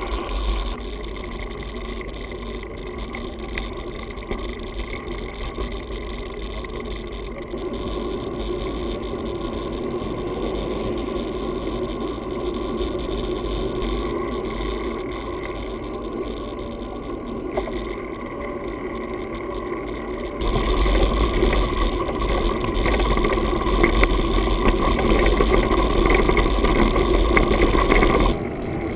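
Mountain bike riding, heard from a camera on the bike: steady tyre noise and rattling of the bike. About two-thirds of the way in it gets louder, with a heavier low rumble, as the ride goes onto a gravel track.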